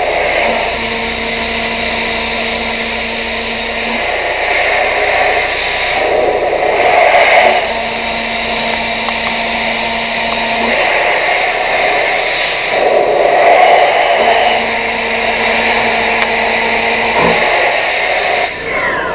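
Milling machine cutting metal at high feed: a loud, steady machining noise with a high whine, and a lower hum that comes in three stretches of about three seconds each as the cutter engages. The noise falls away near the end.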